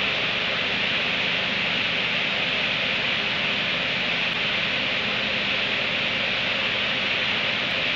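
A steady hiss of noise with a faint low hum beneath it, unchanging throughout.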